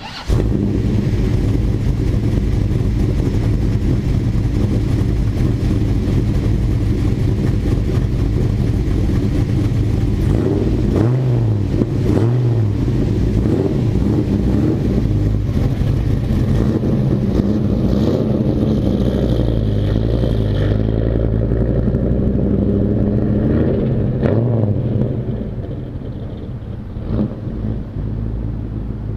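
Dodge Ram SRT-10's 8.3-litre V10 running loudly close by, revved several times. It grows quieter about 25 seconds in as the truck pulls away.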